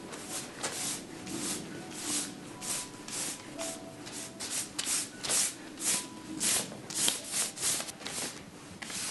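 Paintbrush strokes rubbing across a canvas: repeated brisk swishes, about two or three a second, getting louder in the second half.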